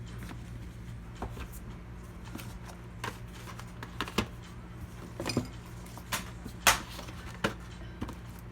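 Irregular clicks and light knocks of computer parts being handled and fitted, about a dozen, the loudest about two-thirds of the way in, over a steady low hum.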